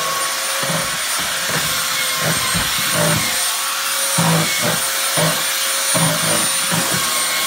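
Ryobi electric belt sander running steadily at full speed with a constant whine, its used sanding belt rubbing unevenly against the dresser's painted wood as it sands through the paint to distress it.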